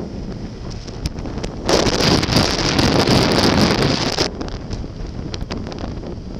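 Wind buffeting the microphone of a camera on a moving motorcycle, a steady rush of noise that swells much louder for about two and a half seconds in the middle before settling back.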